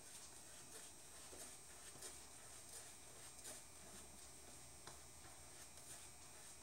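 Faint, irregular soft scratching and crackle of a boar-bristle shaving brush working soap lather over the face and neck.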